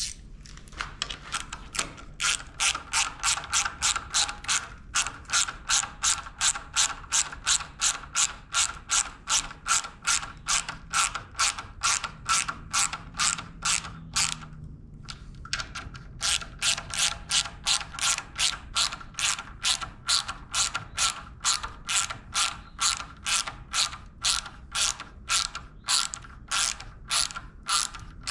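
Ratchet socket wrench clicking steadily, about three clicks a second, as it drives bolts home into a pre-threaded bracket. It stops briefly about halfway, then carries on.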